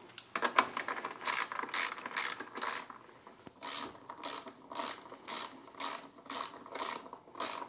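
Socket ratchet on a long extension tightening the battery hold-down bolt, clicking in repeated back-and-forth strokes about two a second, with a brief pause about three seconds in.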